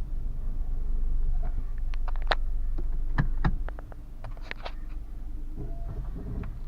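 Citroën C4 driven slowly over rough ground, heard inside the cabin: a steady low road and engine rumble with a scatter of sharp clicks and knocks in the middle, the loudest two about a second apart.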